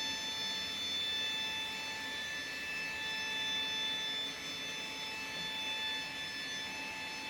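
Steady high-pitched machine whine of a Boeing 737NG's powered systems during a landing gear swing, several even tones over a hiss, with no clear clunks.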